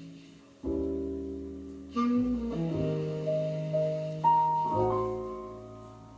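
Piano music played at low volume through a Sansui AU-777A amplifier and its loudspeakers: slow chords struck and left to ring, fading away near the end.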